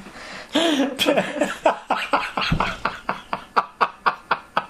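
Laughter: a voiced start about half a second in, then a long run of short ha-ha pulses, about five a second.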